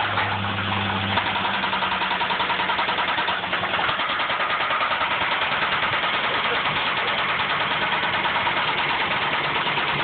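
Ford Ranger's 4.0-litre V6 running with a severe rod knock, a steady, even knocking through the engine sound. It is the sign of a spun connecting-rod bearing or two.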